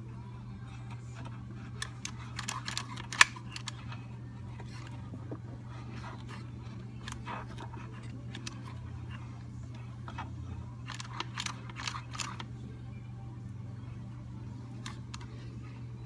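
Two-part epoxy dispensing gun worked by hand, its trigger and plunger giving clusters of clicks about two seconds in and again around eleven seconds in, the loudest a single sharp click; a steady low hum sits underneath.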